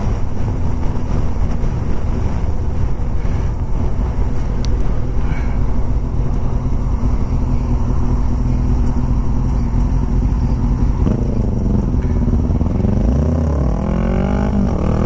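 Wind rushing over the helmet microphone, with the Kawasaki Ninja 600 supersport's inline-four engine running underneath at riding speed. In the last few seconds the engine note dips and then climbs steeply as the bike accelerates hard, in what the rider calls the wrong gear.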